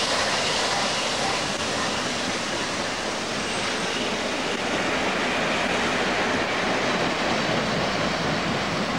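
A train rolling past close by: a steady, loud rush of wheel and rail noise from the moving cars.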